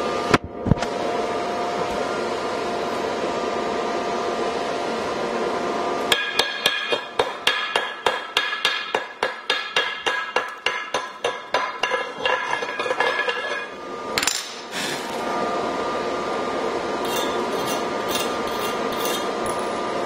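Hammer chipping slag off fresh stick-weld beads on a steel plate: rapid metallic blows, about three or four a second, for several seconds starting about six seconds in, with the plate ringing between strikes.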